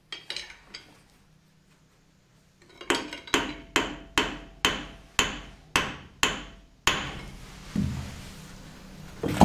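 Hammer striking metal: a few light taps, then a steady run of eight blows about two a second, followed by heavier, duller blows near the end.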